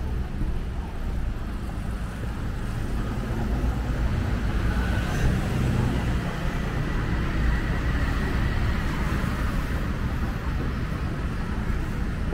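Road traffic noise from a busy city street: the steady rumble of passing cars and motorbikes, growing a little louder in the middle.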